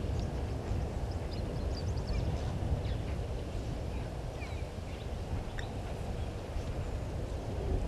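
Faint, scattered short bird calls over a steady low rumble.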